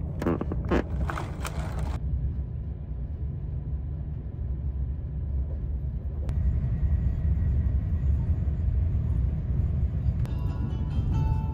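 Passenger train running, heard from inside the carriage: a steady low rumble of the train on the rails. Soft music comes in near the end.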